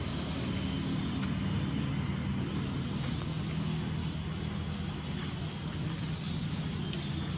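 Engine running steadily with an even low hum, like a motor vehicle idling.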